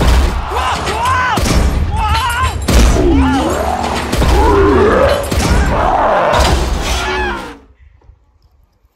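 Animated-cartoon soundtrack: a character yelling and wailing without words over heavy thuds and booms as monster trucks slam onto the arena floor, with music underneath. It all stops abruptly near the end.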